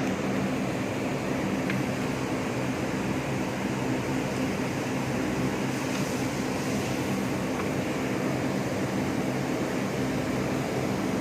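Steady mechanical hum with a low drone, unchanging throughout.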